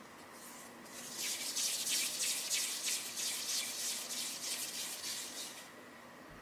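Hands rolling a piece of soft yeast donut dough into a smooth ball: a run of quick, even rubbing strokes starting about a second in and stopping shortly before the end.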